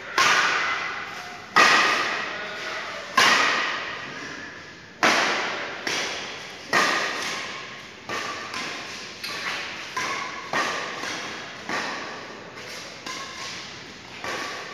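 Badminton rackets hitting a shuttlecock in a doubles rally, a series of sharp hits that echo in a large metal-walled shed. The first few are the loudest, about a second and a half apart, then the hits come quicker and softer, under a second apart.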